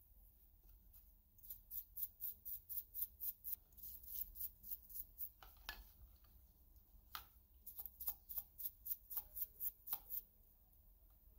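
Paintbrush bristles scrubbing small metal fishing-reel parts in a tub of solvent: quick scratchy strokes of about five a second, in two spells, with a few louder clicks in between.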